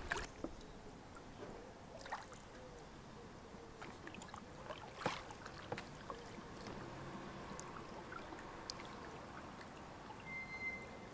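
Kayak gliding on calm water: faint paddle dips and drips, with a few light splashes or knocks now and then.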